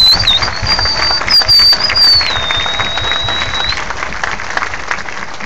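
Baseball crowd in the stands clapping and cheering, with a shrill whistle held for almost four seconds that dips in pitch about two seconds in.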